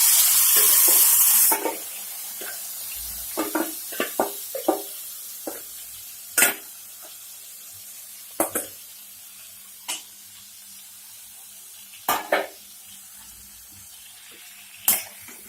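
Marinated mutton going into hot oil in a kadai: a loud burst of sizzling for about the first second and a half, then a quieter, steady sizzle. A utensil knocks against the pan now and then as the meat is stirred.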